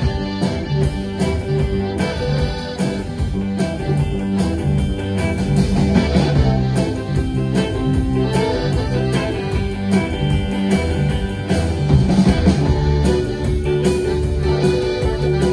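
Live band playing with a steady beat: electric guitar over bass and drums.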